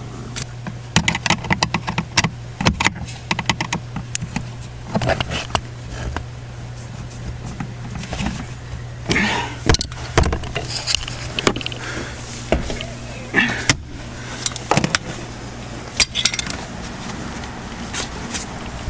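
Scattered clicks, rattles and light knocks of a screwdriver, screws and plastic trim being handled and fastened back in place, over a steady low hum.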